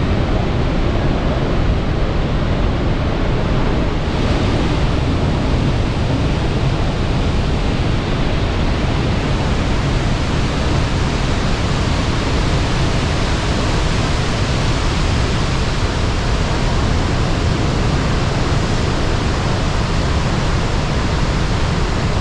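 Steady, loud roar of Niagara Falls: an even rush of falling water with no breaks.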